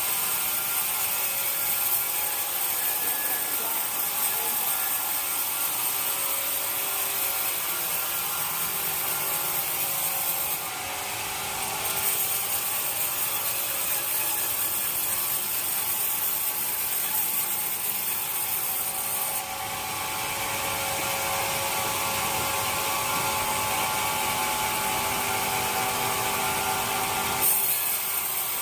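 Sawmill machinery running, with a saw cutting through wood in a steady grinding, rubbing noise over a constant mechanical hum. The sound changes abruptly three times.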